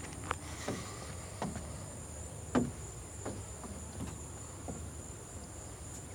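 Steady high-pitched chorus of insects, likely crickets, with a handful of light knocks scattered through it. The loudest knock comes about two and a half seconds in.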